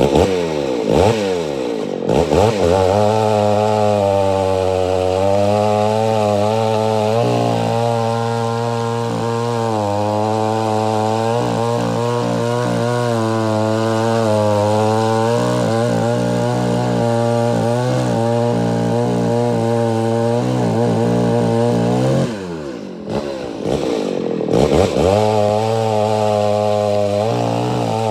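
Homelite Super XL 925 two-stroke chainsaw with a governed carburetor running at full throttle and cutting through a log, its engine pitch wavering under load during a test cut while the carburetor is being tuned. About 22 seconds in the revs fall away and the engine quietens briefly, then it revs back up and cuts again.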